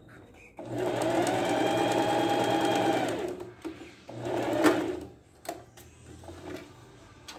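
Electric sewing machine stitching fabric: one steady run of about three seconds, then a second short burst of about a second, followed by faint clicks of handling.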